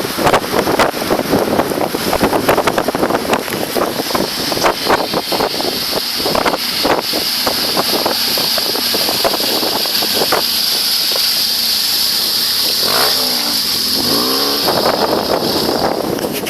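BMW HP2 Enduro's boxer twin engine revving hard as the bike rides past off road, with the pitch rising and falling through a few quick revs about thirteen seconds in.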